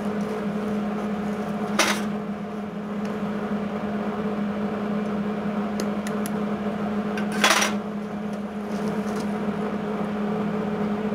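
Flux-core MIG welder humming steadily while switched on, with two short crackling bursts of welding arc as tack welds are struck, about two seconds in and about seven and a half seconds in.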